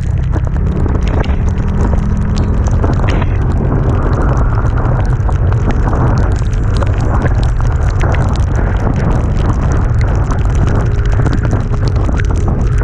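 Loud, steady wind buffeting on the microphone while riding, with a faint engine tone beneath it.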